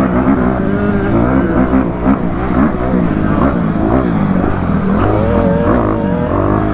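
Dirt bike engine revving up and down as the throttle is worked, its pitch rising and falling repeatedly, about once a second.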